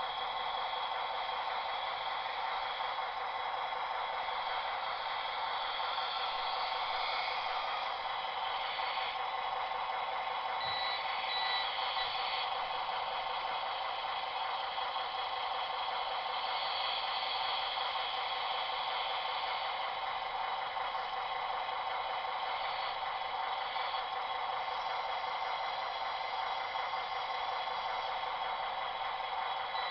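Short high reversing beeps from a scale-model Linde forklift about eleven seconds in, over a steady hiss.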